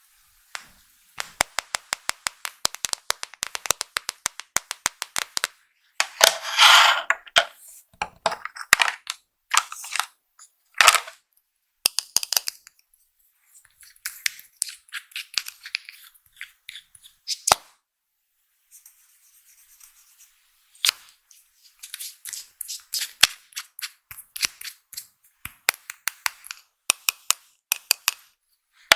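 Close-up handling of plastic makeup packaging: long runs of quick, sharp clicks and taps, broken by short bursts of crinkling and scraping.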